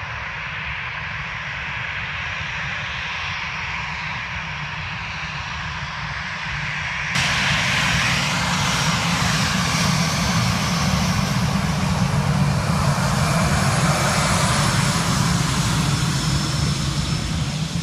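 Airliner engines running with a steady loud roar as an aircraft moves at the airport. The sound jumps up suddenly about seven seconds in and keeps building toward the end.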